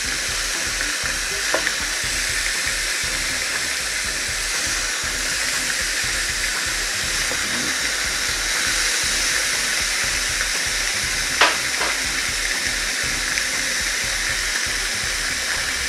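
Beef steak sizzling steadily inside a closed Chefman electric panini grill press. A few short clicks break through, the loudest about eleven seconds in.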